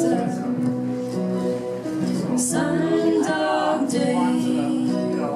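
Live acoustic guitar music, strummed and picked, with a woman singing.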